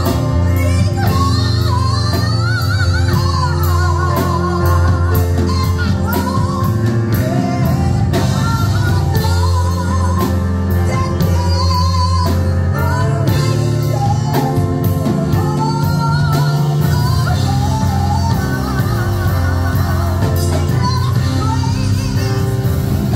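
A woman singing a gospel song into a microphone with vibrato, over instrumental accompaniment with sustained low notes and a steady beat.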